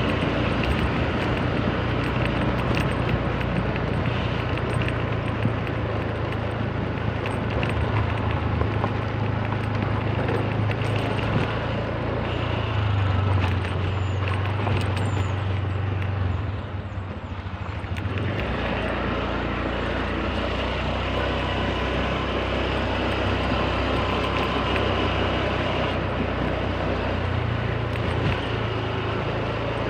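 Small motor scooter engine running steadily under way, with wind and road noise. The engine note drops briefly a little past halfway, as the throttle eases off, then picks up again.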